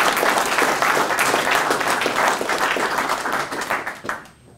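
Audience applauding: dense clapping that tails off and stops about four seconds in.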